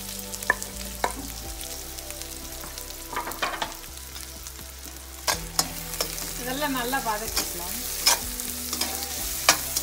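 Sliced red onion, ginger and garlic sizzling in hot oil in a wok, the onion just tipped in. A slotted metal spatula stirs them, scraping and clacking against the pan several times.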